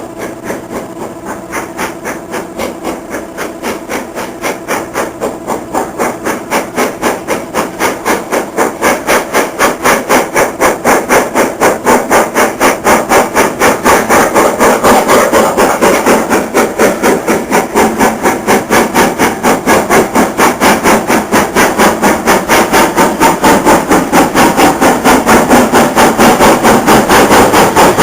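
Steam locomotive working, its exhaust beats coming evenly at about three to four a second and growing steadily louder.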